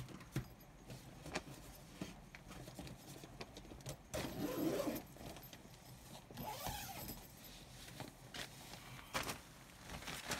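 Handling noise as small items are stowed inside a tent: scattered light clicks and taps, with louder rustling about four seconds in and again near the seventh second.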